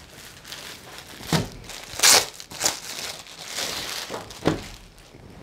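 Clear plastic packaging crinkling and cloth rustling as a folded suit piece is handled and unfolded. It comes as several separate rustles, the loudest about two seconds in.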